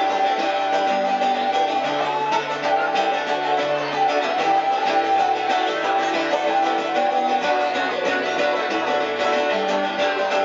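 Live acoustic folk music from a small band: guitar strumming under held melody notes in an instrumental passage with no singing.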